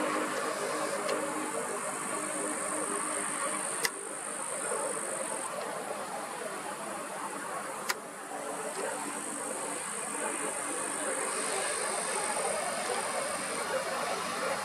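Steady distant engine rumble, with a high continuous buzz that drops out for a few seconds in the middle and two sharp clicks about four seconds apart.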